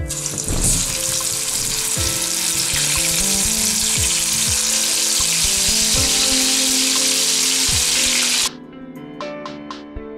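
Chicken leg pieces deep-frying in hot oil in a steel kadai: a loud, dense sizzle starts as the pieces go into the oil. About eight and a half seconds in it cuts off abruptly, leaving soft background music that plays under the sizzle throughout.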